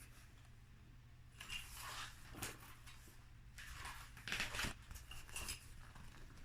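Faint paper rustling and handling as the pages of a picture book are turned, in a few short bursts.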